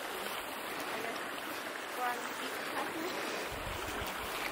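Steady rush of a river flowing over rocks. Wind starts buffeting the microphone about three and a half seconds in.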